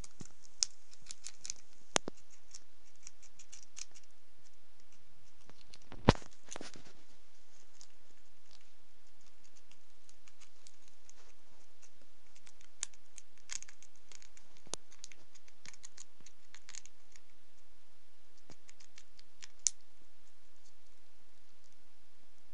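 Eurasian red squirrel gnawing a pecan shell with its teeth: scattered sharp crackling clicks, some in quick runs, with a loud crack about six seconds in.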